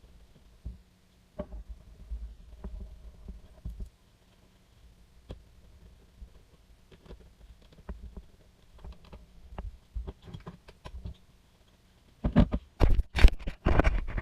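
Handling noise: scattered light clicks and knocks over a low rumble, then a cluster of several loud thumps about twelve seconds in.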